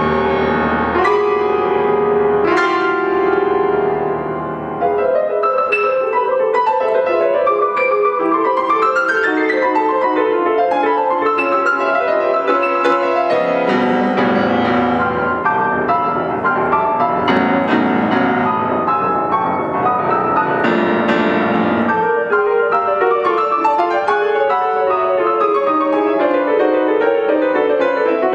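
Grand piano played solo: heavy low chords struck in the first few seconds, then fast runs of notes in the middle and upper range, with deep chords returning now and then.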